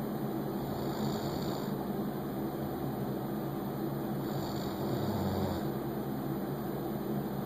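A person snoring faintly: two breaths about three and a half seconds apart, each a soft hiss, the second ending in a short low rumble, over a steady background hum.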